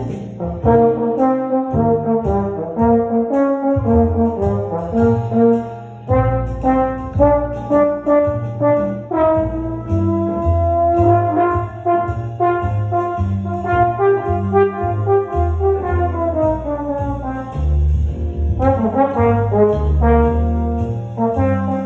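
Trombone playing a solo melodic line: a run of separate notes with short gaps, and a long held note around the middle that bends slowly up and back down.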